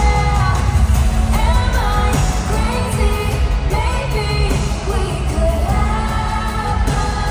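Pop song with a sung vocal melody over bass-heavy backing music.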